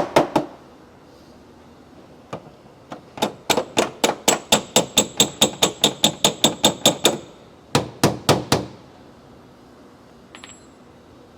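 Hammer tapping on the sheet-metal edge of a Tesla Model 3 rear quarter panel, working the dent straight. There are a few taps, then a steady run of about twenty ringing metallic blows at about four a second, then a few more.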